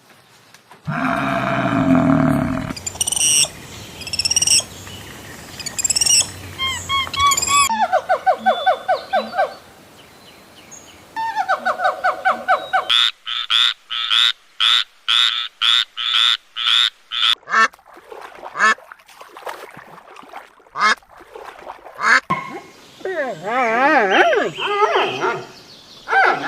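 A run of short animal calls, one clip after another: repeated chirping calls, fast pulsed trills, then rapid trains of clicks, and a wavering call near the end.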